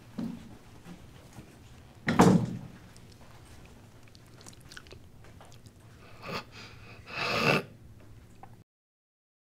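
A door closing with a thud about two seconds in. Later come two short eating sounds, a bite and a chew, and then the sound cuts out to dead silence near the end.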